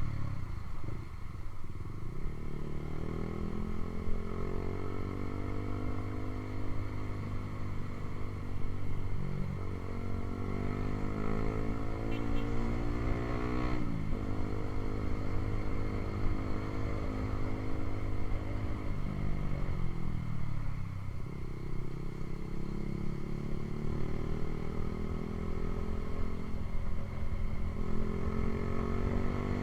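Honda CB150R single-cylinder engine running through a Ronin aftermarket exhaust. The revs climb and fall several times, with a sudden drop about halfway through like a gear change.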